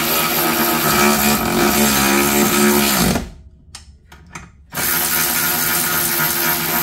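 Power tool running two 16 mm bolts into the control arm bushing brackets: two long spells of steady motor whine, the first winding down in pitch about three seconds in, the second starting a couple of seconds later.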